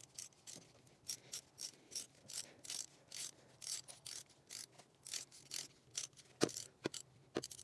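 Hand ratchet on a spark plug socket clicking in quick, uneven runs as it is swung back and forth to unscrew a tight spark plug from a 2.0 TSI engine's cylinder head. A couple of louder knocks come near the end.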